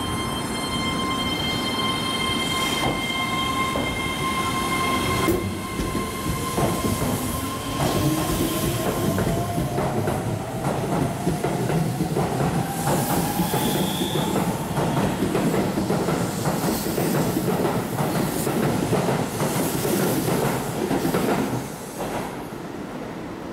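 Keihan 3000-series electric train pulling out. Its motor whine rises steadily in pitch as it picks up speed, with wheels clattering on the rails as the cars pass, and the sound drops away near the end.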